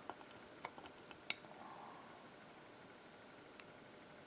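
Small, sharp clicks and light taps of metal lock pins and tools being handled as the pin stacks come out of a pin-tumbler lock. There is one sharper click about a second and a quarter in and another near the end.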